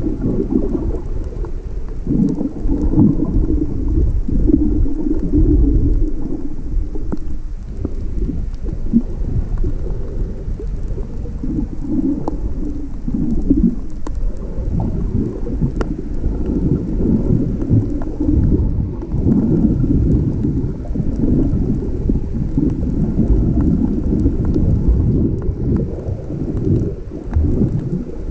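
Rough, stormy sea water churning and sloshing around the camera's microphone, heard as a muffled, surging low rumble.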